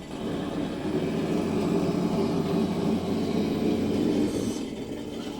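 Simulated engine sound from an electronic sound kit's speaker in a Redcat Everest Gen7 Pro RC crawler, a rumbling engine note that swells up shortly after the start, holds for about four seconds, then drops back to a lower idle near the end.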